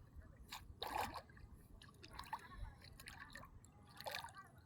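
Faint drips and small splashes of water, with a louder splash about a second in and another about four seconds in.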